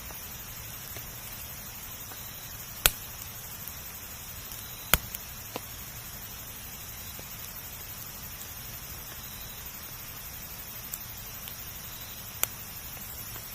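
Wood campfire burning with a steady soft hiss, broken by sharp pops of the wood: loud ones about three seconds in, about five seconds in and near the end, with a few smaller crackles between.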